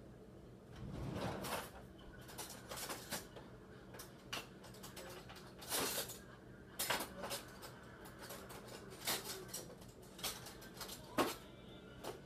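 Cutlery clinking and clattering in a series of irregular knocks as someone searches for a spoon; one sharp clink near the end is the loudest.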